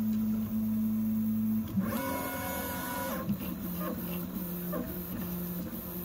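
Original Prusa i3 MK3 3D printer's stepper motors whining as it prints at full speed. The tone is steady until nearly two seconds in, then the pitch shifts, with a brief higher whine for about a second. After that comes a lower tone broken by short, regular dips as the moves change.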